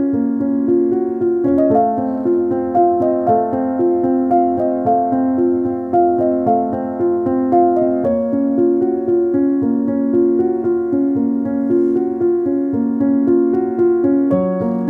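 Background instrumental music, a quick melody of keyboard-like notes changing several times a second. The music is sped up by accident.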